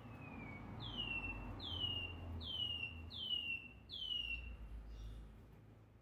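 Caged songbird singing a slow series of five plaintive whistled notes, each sliding downward in pitch, about one a second, after a fainter falling note near the start: the bird coming back into song after its molt.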